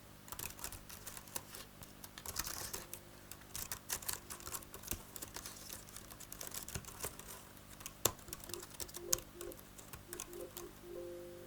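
Typing on the A4Tech Fstyler FX55 keyboard: a fast, irregular run of soft, quiet key clicks.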